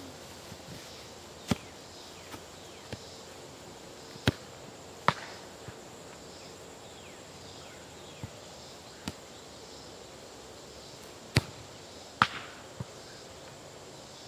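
Sharp thumps of a soccer ball being kicked and landing, about ten in all, the loudest coming in pairs under a second apart. Underneath is a steady outdoor hiss with faint insect chirping.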